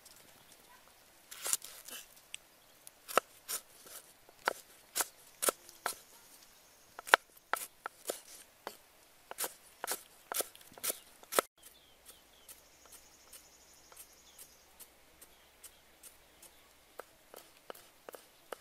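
Cleaver chopping lemongrass on a round wooden chopping block, sharp knocks at about two a second. About halfway through, after a cut, they give way to lighter, fainter taps of a small knife slicing red chillies on the block.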